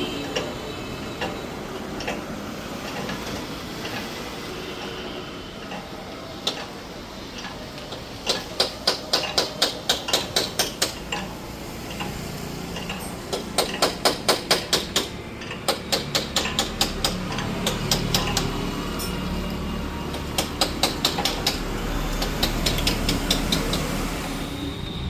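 Hammer blows on metal in several runs of quick strikes, about four a second, with pauses between runs, during pipe-fitting work on an air compressor line.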